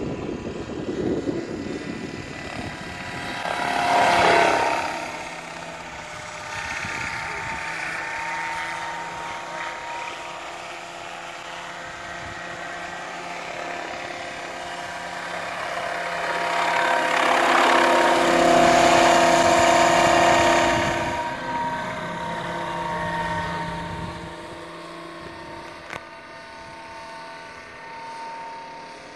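Radio-controlled scale-model Bell UH-1 helicopter running, a steady whine with rotor noise, growing louder for several seconds in the middle as it lifts off and climbs, then easing off. A brief loud swell comes about four seconds in.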